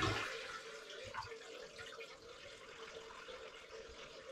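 Toilet draining after a flush, its handle held down to empty the tank before removal: the rush of water dies away in the first second into a faint steady trickle and drip.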